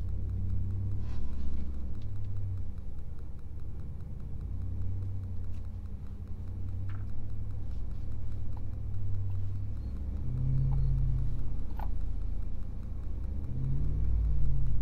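Dodge Ram 1500 pickup crawling in four-wheel-drive low range, first gear, its engine running low and steady. The engine note swells briefly twice, about two-thirds of the way in and again near the end, with a few faint clicks along the way.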